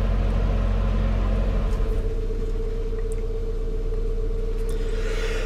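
Narrowboat's engine running steadily while the boat is underway, heard as a low hum inside the boat's cabin; a steady higher tone joins about two seconds in.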